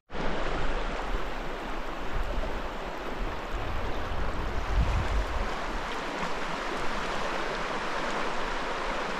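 River water running steadily past, an even rushing sound.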